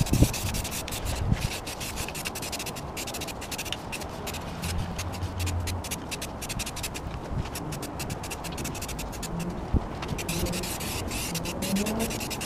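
An aerosol can of self-etching primer spraying, sped up about ten times, so that the hiss comes in rapid short bursts.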